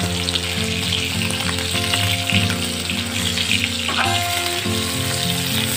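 Pieces of kakle (freshwater garfish) shallow-frying in hot oil in a wok, sizzling steadily with fine crackles. Background music plays underneath.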